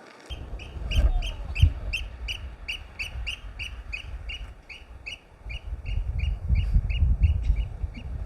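A bird calling in a fast, even series of short high notes, about three a second, over low wind rumble on the microphone.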